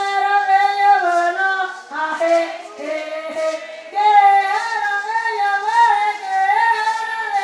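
High voices singing a slow melody, unaccompanied, in long held notes that bend gently, with a short break about two seconds in.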